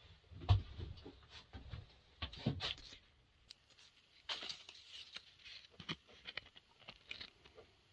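Handling noise as the camera is repositioned: a low thump about half a second in, then scattered soft clicks, knocks and brief rustles.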